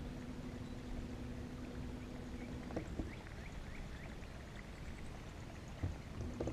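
Bass boat's bow-mounted electric trolling motor humming steadily. It cuts off about three seconds in and starts again near the end, over low wind and water rumble, with a few faint short chirps and small knocks in between.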